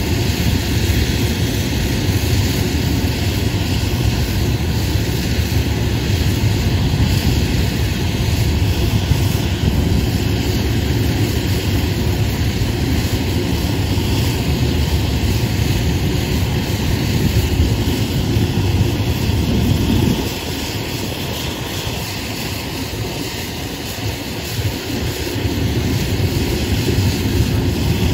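Blackburn Buccaneer's Rolls-Royce Spey jet engines running steadily at idle on a ground run: a loud, even rumble with a hiss over it. The low rumble eases off for a few seconds about twenty seconds in, then comes back.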